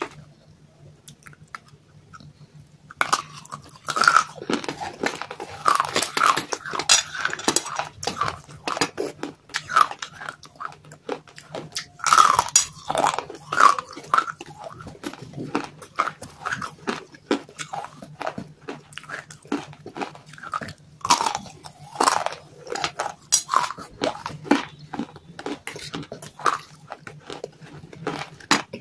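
Chunks of dry clay dipped in a thick white paste being bitten and chewed close to the microphone: quiet at first, then from about three seconds in a dense run of crisp crunches. A faint steady hum lies underneath.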